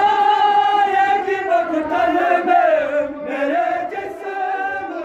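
Men's voices chanting a Muharram mourning lament (noha) in long, drawn-out notes that waver in pitch, fading toward the end.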